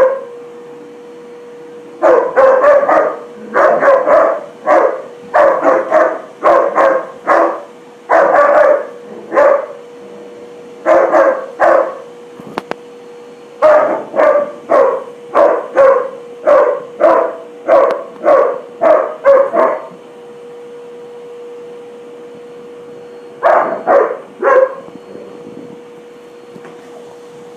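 A dog barking repeatedly in quick volleys at a vacuum cleaner hose. A steady hum runs underneath. The barking stops for a few seconds about two-thirds of the way in, then comes back in a short burst.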